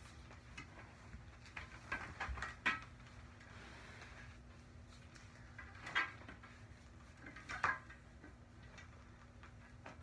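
Quiet handling noise: a handful of soft knocks and rustles as an LP jacket and laundry are moved about on a glass-topped coffee table, over a faint steady hum.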